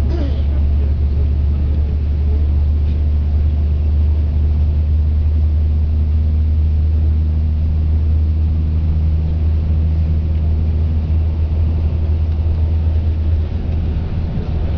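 Steady low rumble of a moving road vehicle, engine and road noise, heard from inside the cabin while it drives along.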